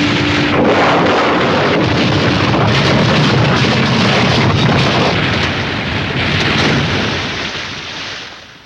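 Sound-effects recording of a passenger liner being wrecked on rocks in heavy surf: a loud, continuous crashing noise with a low steady tone in the first second and a half, fading out near the end.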